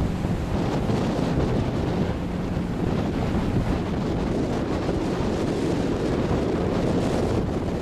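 Sea surf roaring steadily, a dense low rush without distinct separate wave crashes, with wind buffeting the microphone.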